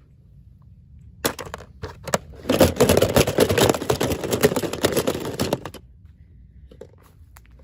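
Packaging being crinkled and torn open by hand: a few sharp snaps, then a dense run of rapid crackling from about a second in that stops abruptly near six seconds, followed by a few faint clicks.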